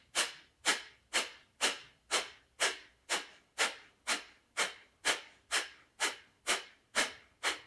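Kapalbhati breathing: a rapid, even train of short, forceful exhales through the nose, about two a second, with silent passive inhales between them.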